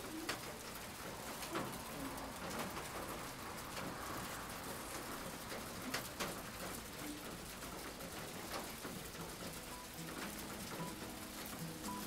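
Spring rain falling steadily: an even soft hiss with scattered drops ticking on a surface.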